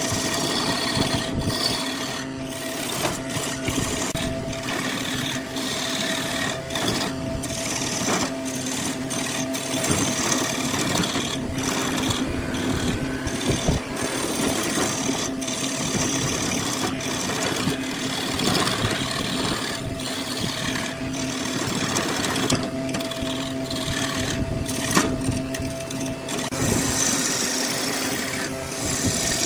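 Wood lathe running with a steady hum while a hand-held chisel cuts into the spinning wooden blank, making a continuous rasping scrape of wood being turned that briefly breaks off now and then.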